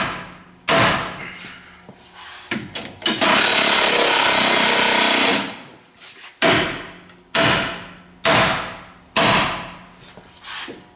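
Hard hammer blows on steel, each ringing out for about a second. There are two near the start and four more at about one a second in the second half, with a loud steady rush of noise lasting about two seconds between them.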